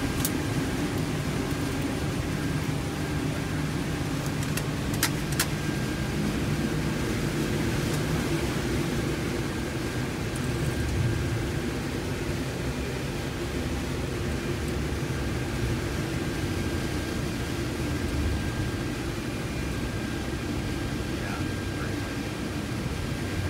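Cockpit noise inside a C-17 Globemaster III on the runway: a steady low rumble from its four Pratt & Whitney F117 turbofan engines and the airframe, with a faint steady high tone over it. Two sharp clicks about five seconds in.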